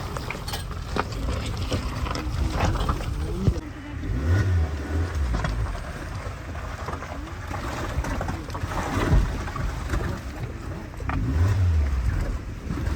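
Car engine labouring on a rough, muddy dirt road, its revs rising and falling, with scattered knocks and rattles as the vehicle jolts over the ruts.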